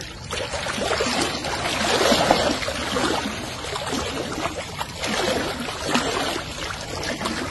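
Water running and splashing, an uneven, continuous noise.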